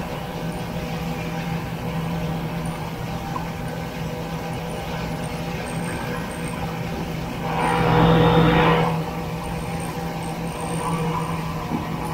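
Vintage Ski-Doo Olympique snowmobile's single-cylinder two-stroke engine running at a steady pitch while riding along. About eight seconds in, a louder rush of noise swells for about a second, then settles back.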